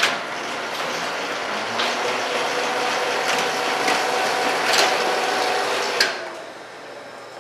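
Office laser printer running: a steady mechanical whirr that starts abruptly, with a sharp click every second and a half or so, fading down near the end.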